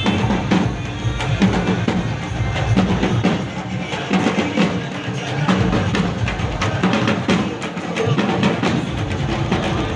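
Loud music with dense, rapid drum strokes over a heavy bass, played through a rented DJ sound system.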